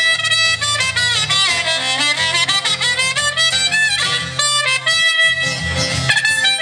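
A live band plays an instrumental break: a lead wind instrument with sliding, bending notes over a steady bass line.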